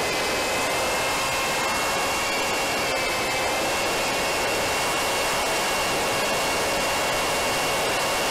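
Wing Wing Z-84 flying wing's pusher electric motor and propeller whining steadily in flight, under a dense rush of air, heard from the onboard camera. The whine shifts slightly in pitch at the start and again about three seconds in.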